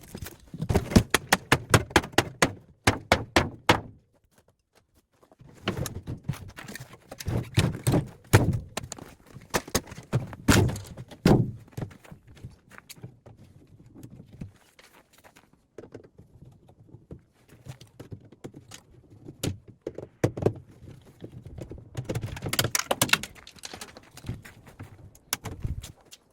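Knocks and clatter from a refrigerator being taken apart by hand: rapid runs of sharp thunks in the first few seconds, a brief pause, more clusters of knocks, then sparser ones with another run near the end.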